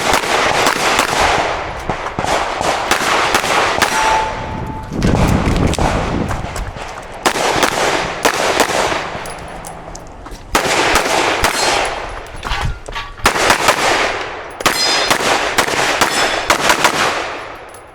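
Rapid strings of shots from a 9mm Glock 47 pistol, echoing, in several bursts with short pauses between them, tapering off near the end.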